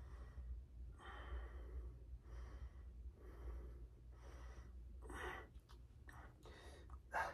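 A man's heavy, laboured breathing from exertion in the middle of a set of dumbbell lifts, a breath about once a second, with a sharper, louder breath near the end. A steady low room hum lies underneath.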